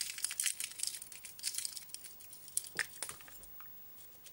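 A bunch of keys on a keyring being handled, giving small metallic clicks and rattles, busiest in the first two seconds and dying away after about three seconds.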